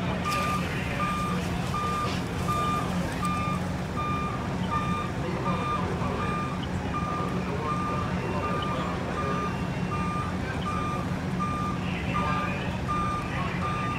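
Vehicle backup alarm beeping steadily, about once every three-quarters of a second, over the steady drone of a running truck engine.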